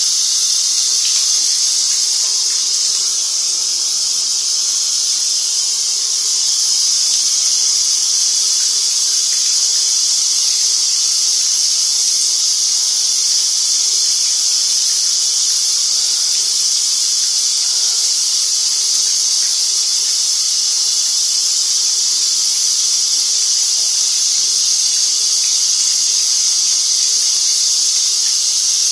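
Shower running: a steady hiss of water spray that holds level throughout.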